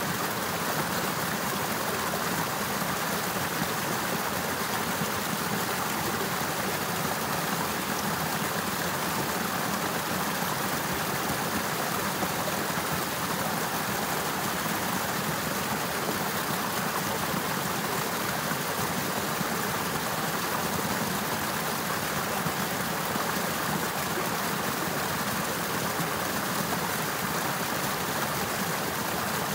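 Running water in an icy river with icicles, a steady, even rush of flowing water that doesn't change.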